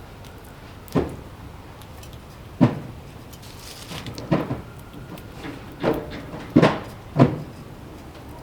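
Six hollow knocks, irregularly spaced a second or so apart, the last three closer together.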